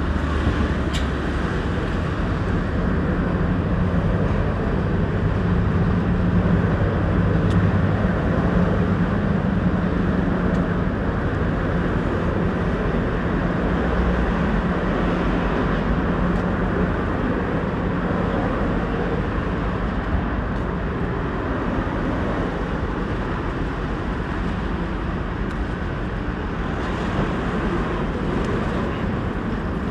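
Steady road traffic on a busy city street, engines and tyres of passing cars, swelling for a few seconds as a vehicle goes by close about a quarter of the way in.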